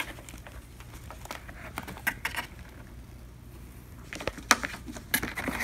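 Scattered light clicks and rustles of a kitten rummaging in a cardboard delivery box among packing paper and food cans, with a few sharper clicks near the end.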